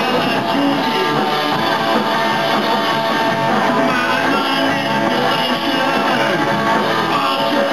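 A live rock band playing, led by electric guitar, at a steady loud level.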